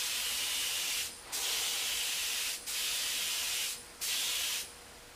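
Compressed-air spray gun with a top-mounted paint cup hissing as it sprays thinned rust paint, in four bursts of about a second each as the trigger is pulled and released. It stops about four and a half seconds in.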